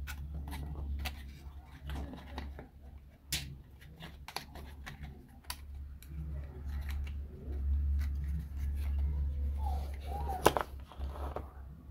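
Light clicks and taps of thin laser-cut plywood model parts being handled and pressed together by hand, a few sharper snaps among them, over a steady low hum.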